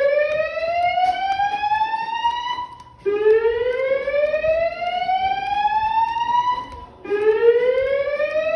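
System Sensor SpectrAlert fire alarm speaker sounding the slow whoop evacuation tone: a loud sweep rising in pitch for about three and a half seconds, breaking briefly and starting again about every four seconds. It is the building's signal to evacuate.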